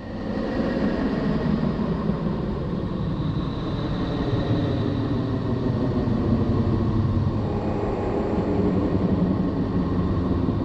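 Space 'sound' of the planet Neptune, a so-called song of ice and wind: a steady, dense low rumbling drone with faint sustained tones above it.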